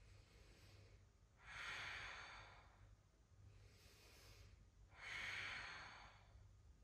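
A person breathing slowly and faintly: two long, soft breaths, one about a second and a half in and another about five seconds in, while a yoga pose is held.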